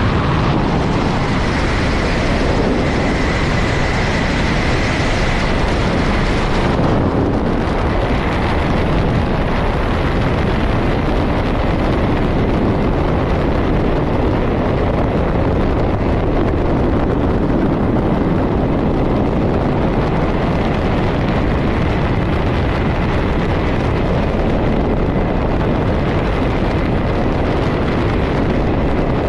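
Steady freefall wind rushing over a skydiving camera's microphone, a loud, even noise; its highest hiss thins out about seven seconds in.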